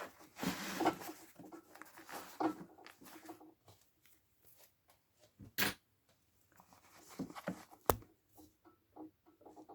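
Quiet, irregular handling noises of a small zipper being worked by hand and with pliers: fabric rustling and the zipper teeth scraping as the slider is pushed onto the tape, with two sharp clicks about halfway through and two seconds later.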